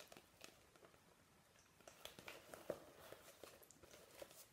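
Faint rustling and light taps of paper cross-stitch pattern charts being sorted by hand.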